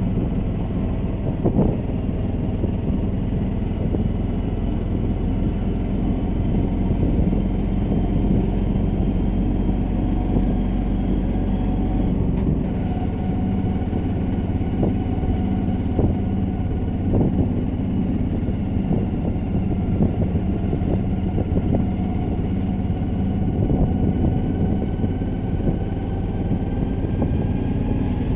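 Engine of a road vehicle running steadily while driving along a street, its pitch drifting slowly up and down, over a constant low rumble.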